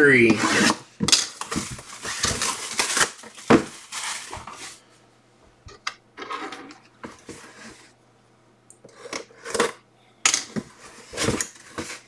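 Cardboard jersey box being handled and opened by hand: irregular scraping, rustling and sharp knocks as the box is shifted and its lid worked loose and lifted, busiest in the first few seconds.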